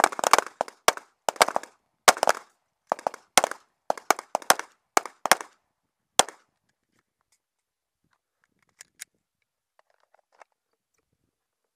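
Rapid strings of 9mm pistol shots, many coming in quick pairs and bursts, that stop about six seconds in. Two faint sharp clicks follow a little before the nine-second mark.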